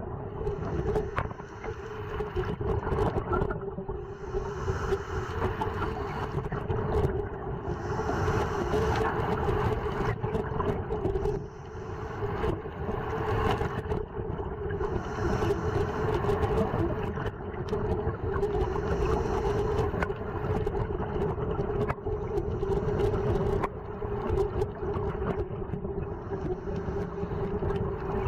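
Underwater sound on a scuba dive: a diver breathing through a regulator, the exhaled bubbles coming out in a hiss about every three to four seconds, over a steady hum carried through the water.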